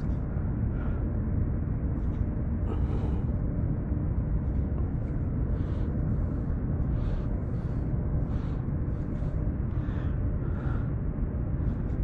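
Steady low rumble of wind buffeting a head-mounted camera's microphone, with faint scattered ticks from tackle being handled on the kayak.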